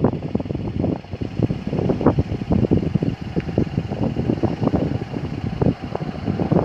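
Wind buffeting the microphone: an irregular, gusty rumble that rises and falls.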